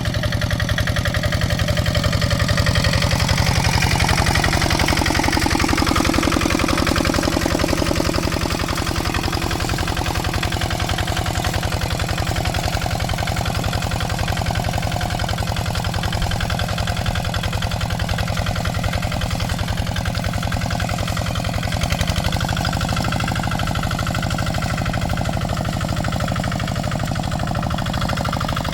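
Kubota RD65 DI-1S single-cylinder diesel on a hand tractor, running steadily with a rapid even beat. Its note shifts slightly about 22 seconds in.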